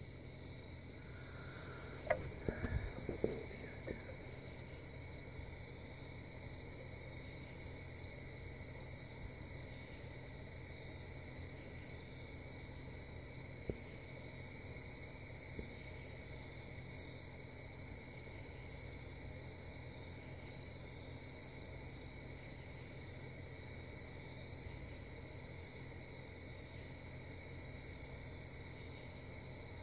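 Steady high-pitched chorus of night insects, with a few soft knocks about two to four seconds in.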